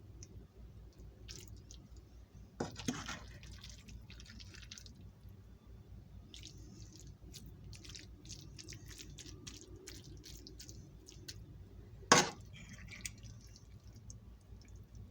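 Someone eating: soft wet chewing and small mouth clicks over a low steady hum. Two sharp knocks cut through, about three seconds in and again about twelve seconds in, the second the louder.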